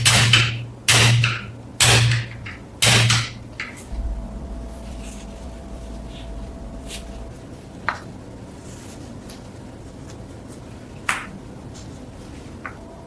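Four heavy knocks about a second apart, as from blows on metal. They give way to a low steady hum with a couple of faint clicks.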